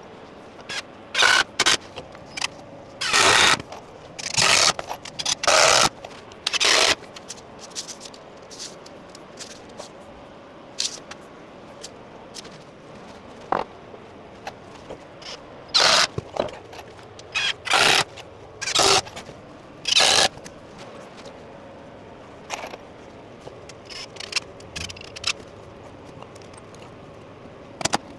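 Cordless drill-driver run in about a dozen short bursts, each under a second, fixing timber studwork to a stone wall, with a few sharp knocks in between.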